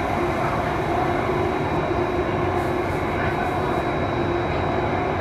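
Singapore MRT Circle Line train running through an underground tunnel, heard from inside the carriage: a steady rumble and hiss of the train in motion, with a faint steady tone over it.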